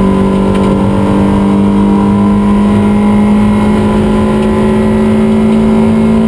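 Toyota MR2 race car's engine heard from inside the cabin, running loud and steady at high revs under load, its pitch creeping slowly upward as the car pulls through the gear.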